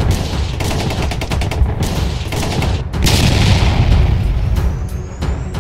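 Sci-fi outro sound effects: rapid-fire crackling over a heavy low rumble, a loud whoosh about three seconds in, then a thin rising whistle toward the end.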